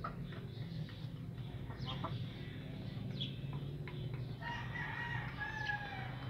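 A rooster crowing once, a held call of about a second and a half starting some four and a half seconds in and sagging in pitch at the end. Brief high chirps come earlier, over a steady low hum.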